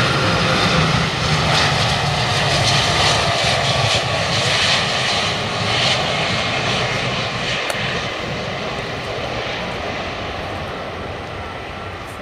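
Nippon Cargo Airlines Boeing 747 freighter's four jet engines on landing approach: a loud, steady roar as it passes low, fading gradually over the second half as the jet lands and moves away down the runway.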